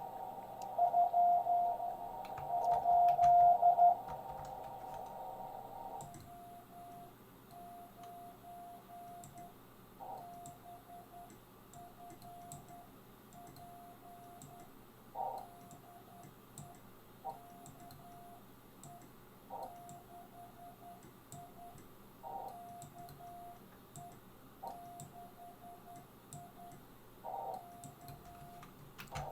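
Morse code (CW) tones of about 700 Hz from a 40-metre ham radio transceiver. For the first few seconds a louder keyed signal sounds over receiver hiss. From about six seconds the hiss is gone and a quieter, even run of dots and dashes is sent from an electronic keyer, with an occasional sharp click.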